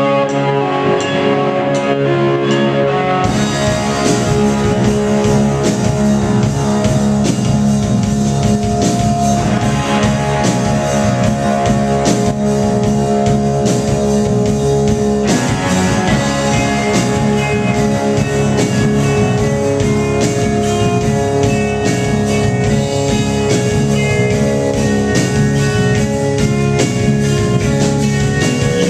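Live rock band with electric guitars and a drum kit. The guitars hold sustained notes at first, then about three seconds in the drums and cymbals come in and the full band plays a loud rock groove.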